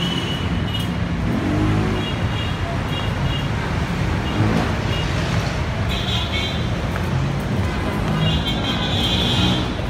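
Busy city street traffic: a steady mix of vehicle engines and road noise, with a few short high tones about six seconds in and again near the end.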